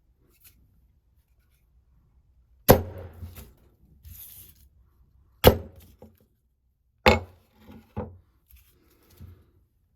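Hatchet striking wood: four sharp chops, with lighter knocks and rustling between them.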